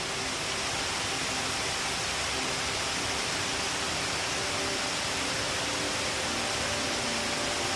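Shiraito Falls' water falling in a steady, even rush. Faint held notes of background music sound underneath.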